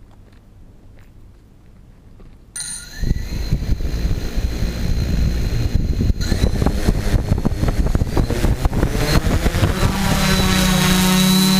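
Tarot 680 multirotor drone's brushless motors and propellers starting up about two and a half seconds in after a few faint clicks, spinning up with rising pitch and settling near the end into a loud steady buzzing hum with a high electronic whine above it.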